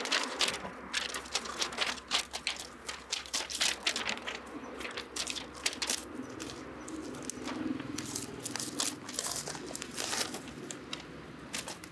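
Irregular crinkling and crackling with many quick clicks: a kitten biting and tussling with a toy it has caught.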